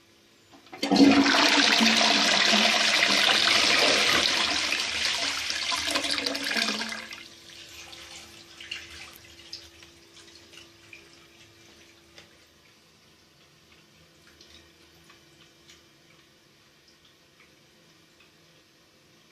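A 2014 Lecico Atlas toilet flushing. A loud rush of water starts just under a second in and lasts about six seconds, then cuts off into fainter trickling and scattered drips that die away.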